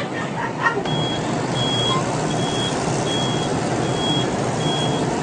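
Electric mobility scooter's reversing beeper: a short, high, single-pitched beep repeating evenly a bit more than once a second, starting about a second in, over a steady hum.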